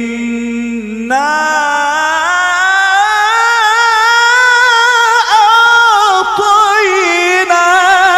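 A man reciting the Quran in the melodic mujawwad style, stretching one phrase into a long ornamented melisma. A low held note breaks off about a second in; the voice then starts higher, climbs slowly while sustaining the line with wavering turns, and eases back down near the end.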